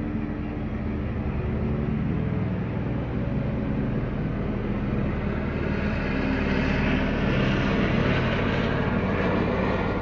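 Police helicopter in flight, its rotor and engine noise steady with a low hum and growing louder past the middle.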